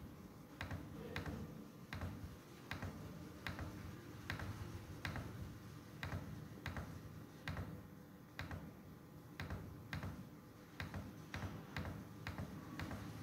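Computer mouse button clicking about twice a second, each click placing one vertex while a polygon outline is traced by hand. A faint steady low hum runs underneath.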